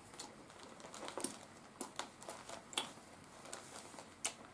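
Light, irregular clicks and paper rustles, about a dozen in all, from an old paper booklet being handled and lifted at a table.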